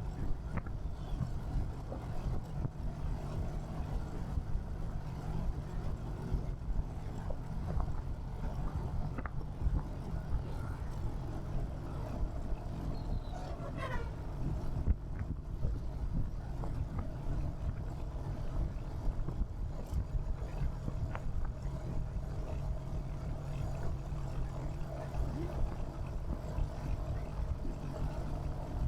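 Royal Enfield Hunter 350's single-cylinder engine and exhaust thumping steadily while riding through city traffic, with road and traffic noise around it. A brief falling whistle-like tone comes about halfway through.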